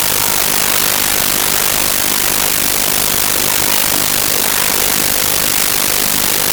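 Loud, steady hiss of static from a faulty audio recording, even throughout and strongest in the high range, covering any game sounds.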